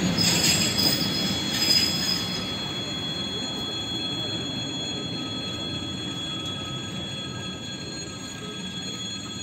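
ЭП2Д electric train running past the platform: a steady wheel rumble with high, steady whining tones, and a bright wheel squeal in the first couple of seconds. The sound slowly fades as the last car goes by.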